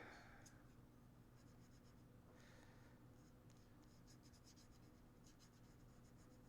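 Faint scraping and ticking of a small tool sweeping solder paste across a chip reballing stencil, in quick irregular strokes over a low steady hum.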